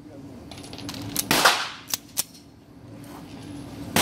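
Two shots from a semi-automatic pistol fired in an indoor shooting range, one about a second in and another right at the end, each followed by a ringing echo off the range walls. A couple of light clicks come between them.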